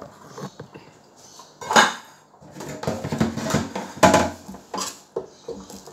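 Kitchenware knocking and clattering against a stainless steel sink as a plastic bowl and a cutting board are set out: two sharp knocks about two and four seconds in, with rattling between them and a few lighter knocks near the end.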